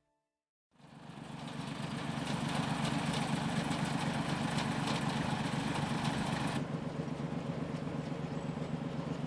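Diesel multiple unit's underfloor diesel engines idling with a steady throb, coming in about a second in. About two-thirds of the way through, the higher hiss drops away abruptly while the engine throb carries on.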